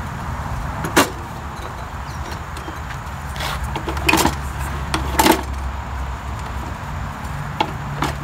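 Sharp metal clicks and knocks, about half a dozen over several seconds, as the kerosene heater's wick and burner assembly is handled and seated on its base, over a steady low engine-like hum.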